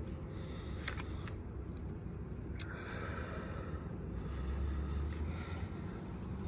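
Light handling clicks and rustles from a chainsaw file set in its plastic package being turned in the hand, over a steady low background hum.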